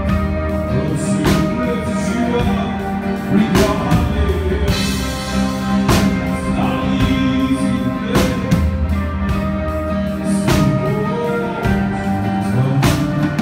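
Live band music from the audience: strummed acoustic guitar over sustained chords, with a heavy drum hit about every two and a half seconds and a male voice singing in phrases over it.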